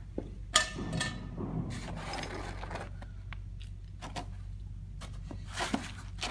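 Scattered knocks, clatters and rustling from TV-stand parts and packing foam being handled, with a sharp knock about half a second in as the loudest, and another cluster of knocks near the end. A steady low hum runs underneath.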